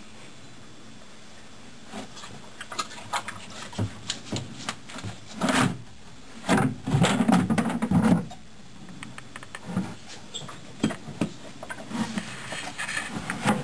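A horse nosing and licking at a rubber feed bucket and a wooden feed box while cleaning up bran mash, with scattered knocks, scrapes and rustles. There is a louder stretch of scraping and knocking about six to eight seconds in.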